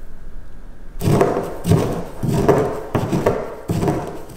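Granite pestle crushing coriander seed, black pepper and salt in a granite mortar, with the salt added so the spices break down well. The strokes start about a second in and repeat roughly one and a half times a second.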